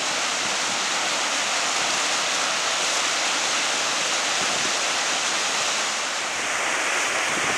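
Steady rushing of water from a small waterfall cascading down rock steps in a moorland stream. The sound shifts a little about six seconds in.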